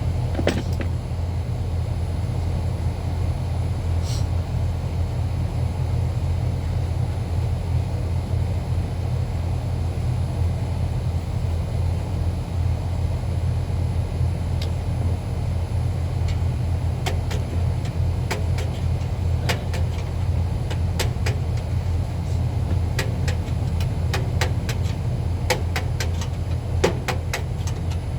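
A steady low machine drone, with scattered sharp clicks and taps in the second half.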